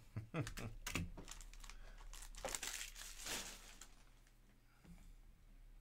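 A few light taps of cards being set down on a stack, then a Donruss basketball hobby pack's wrapper being torn open and crinkled for about a second and a half, fading out.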